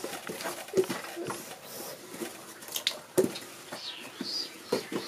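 Wooden spatula stirring and pressing thick carrot-and-garri fufu in a metal pot, with irregular knocks of the spatula against the pot. The sharpest knocks come about a second in and about three seconds in. This is the fufu being turned as the garri binder is worked in.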